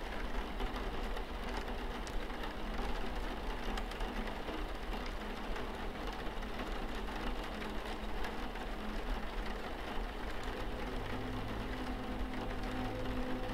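Steady rain pattering on a window pane, a dense hiss with fine droplet ticks. Low held musical tones come in near the end.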